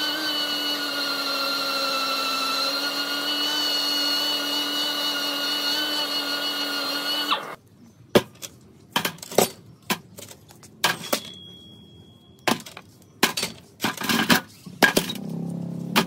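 Pneumatic random orbital sander running with a steady whine as it sands a rusty steel concrete-mixer drum, cutting off about halfway through. After that comes a series of sharp metallic clanks as steel gears and shafts are set down one at a time in a stainless steel tray.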